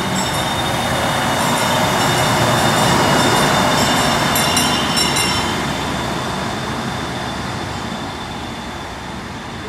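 NSW 620/720 class diesel railcar set passing close by and pulling away, a broad rumble of engines and wheels on rail that is loudest about three seconds in and then fades. A few sharp clicks come around the middle, over a thin steady high tone.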